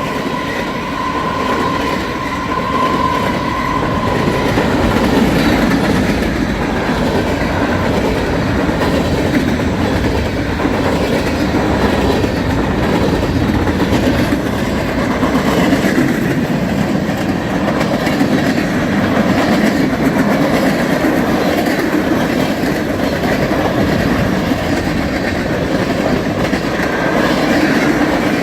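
BNSF mixed freight train's cars rolling past at speed, a steady rumble with the clatter of wheels over rail joints. A thin high tone sounds for the first few seconds, then fades.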